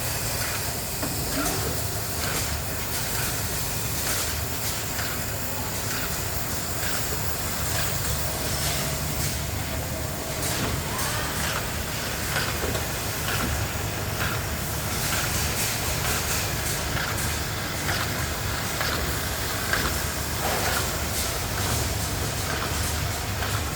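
Foam roll cutting machine running steadily, a constant low hum under a hiss, with scattered light clicks.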